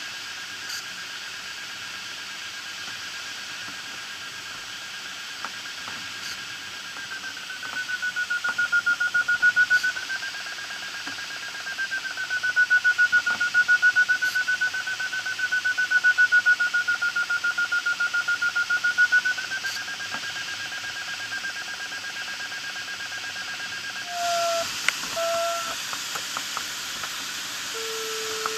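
Glider's audio variometer sounding a steady high tone that slowly rises and falls in pitch, breaking at times into rapid beeps, the signal that the glider is climbing in lift, over a steady hiss of airflow in the cockpit. About 24 seconds in the tone drops lower, with a few short beeps.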